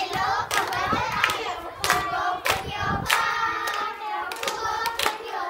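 A group of young girls singing a Gujarati children's song together and clapping in time, with sharp claps about one and a half times a second.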